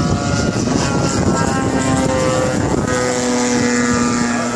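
Yak 54 aerobatic plane flying overhead, its engine and propeller making a steady, loud drone. The pitch shifts lower about three seconds in as the plane passes.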